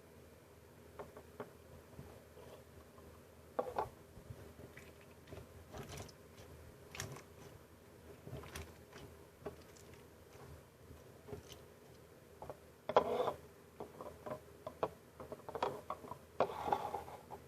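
Slime being handled and squeezed, giving scattered small sticky clicks and pops, with louder bursts of crackling about 13 seconds in and again near the end.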